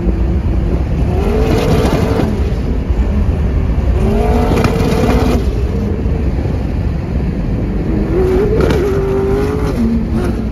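Funco FD9 sand car's twin-turbo LS V8 engine running loud under hard acceleration, its revs climbing and dropping three times: about a second in, around four seconds in and around eight seconds in.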